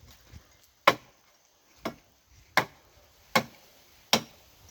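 A hand-held blade chopping into tree branches: five sharp wooden blows, about one every three-quarters of a second, the second one weaker.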